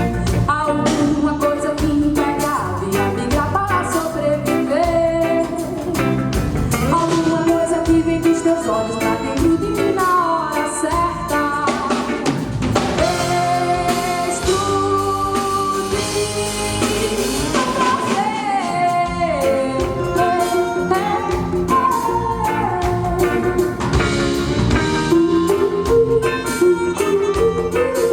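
Live band music: drum kit and hand percussion keep a steady beat under electric guitar and keyboards, with a melodic lead line that slides and bends in pitch.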